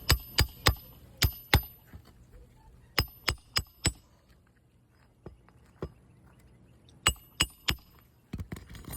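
Sharp, ringing metal hammer strikes driving roofing nails into a shingle with a roofing snake tool. The strikes come in three quick runs of three to five blows, with pauses between.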